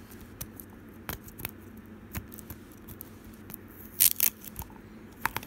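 Small plastic clicks and taps from hands handling gashapon toy capsules and their packaging on a tabletop, with a louder short burst of clatter about four seconds in.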